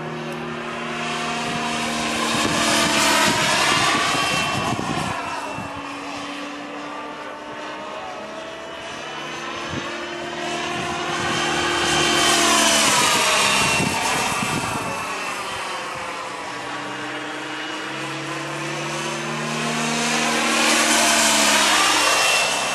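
Align T-Rex 700 radio-controlled helicopter with a Wren 44 model gas-turbine engine flying past three times, its high turbine whine and rotor sound swelling and fading. The pitch bends down as it goes by, and the loudest passes come a few seconds in, near the middle and near the end.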